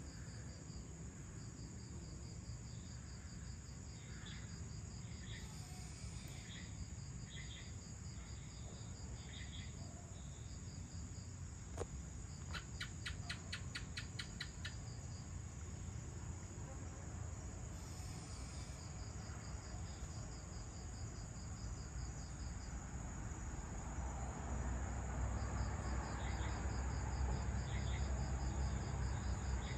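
Crickets and other insects calling together: a steady high-pitched drone with a fast pulsing trill beneath it and a few scattered chirps. A little before halfway a short run of about ten rapid clicks, and a low rumble grows louder near the end.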